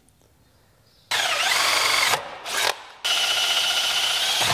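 DeWalt cordless drill motor running in bursts: a run of about a second starting a second in, a short blip, then a longer steady run at an even pitch.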